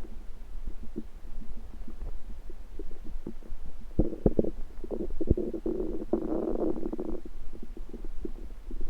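Human stomach rumbling: scattered small gurgles and pops, swelling about four seconds in into a louder, continuous gurgle that lasts about three seconds before breaking back into occasional pops.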